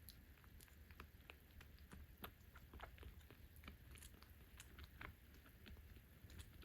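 Faint, wet mouth sounds of a young kitten sucking and chewing: a scatter of soft, irregular clicks.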